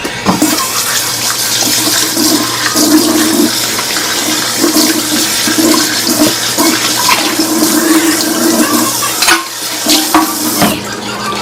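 Water rushing steadily, like a tap running hard into a sink. It starts suddenly and eases off near the end.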